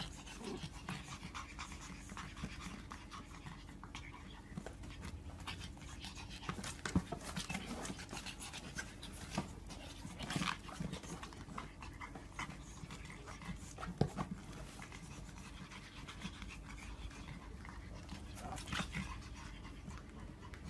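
Pug puppies panting while they play-wrestle, with irregular scratching and light knocks from their paws against a suitcase. A couple of sharper knocks stand out, about seven and fourteen seconds in.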